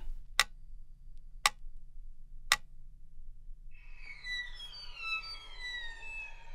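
Three sharp ticks about a second apart, then, just past halfway, music of slow falling, sliding tones over a held high tone fades in.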